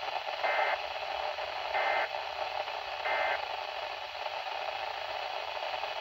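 Midland weather alert radio's speaker playing three short bursts of SAME digital data tones over a steady hiss of static. Each burst lasts about a third of a second, with about a second between them; the short length is typical of the end-of-message code.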